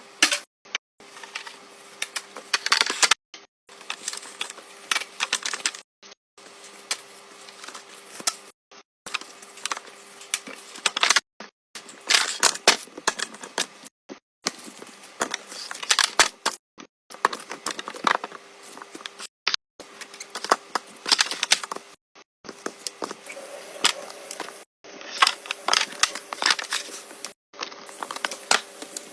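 Rapid clicks, taps and crackles of small objects being handled, broken into short stretches by sudden silent gaps, over a faint steady hum.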